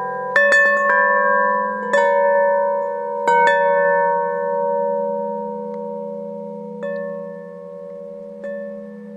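Bell-like metal chimes struck about seven times, most of the strikes in the first four seconds and two more near the end. Each strike sounds several pitches that ring on and overlap as they slowly fade.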